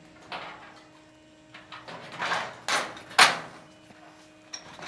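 Steel barge capping flashing being slid and pressed onto the edge of a Klip Lok metal roof sheet: a series of short sheet-metal scrapes and knocks, the loudest about three seconds in.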